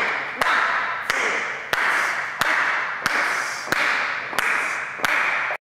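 High heels of a group of women walking in step on a hard tiled floor, the strikes landing together about one and a half times a second, each followed by a ringing haze in the room. The sound cuts off suddenly near the end.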